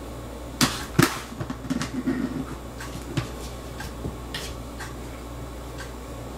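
A cat knocking and pushing at a plastic food jar with a red lid: two sharp knocks in the first second, a quick run of smaller taps and rattles around two seconds in, then a few scattered clicks.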